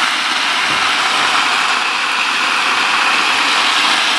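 A bucket of water poured onto a plastic-lined sand shower floor, making a steady rushing gush as it splashes and runs off the plastic. It is a flow test to check that the water drains the intended way toward the greywater trench.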